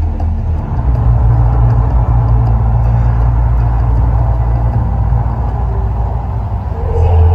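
Heavy, deep rumble with a noisy roar over it from the Mirage volcano's eruption show, between passages of its music.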